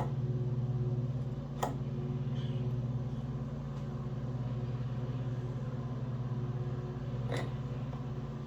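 Small lawnmower engine idling steadily, with two sharp clicks, one early and one near the end.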